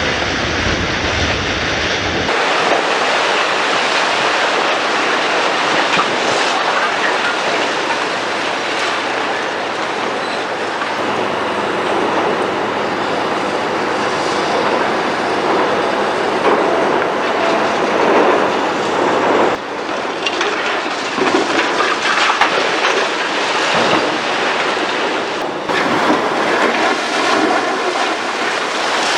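Large demolition excavators at work on concrete: continuous clanking, grinding and crushing of steel on concrete and rubble. The sound changes abruptly several times, at cuts between shots.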